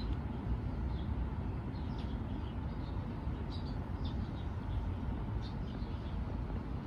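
Birds giving short, high chirps scattered throughout, over a steady low rumble.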